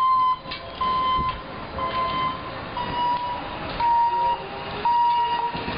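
An electronic warning beeper sounding about once a second, each beep about half a second long and steady in pitch, the pitch drifting slightly lower partway through.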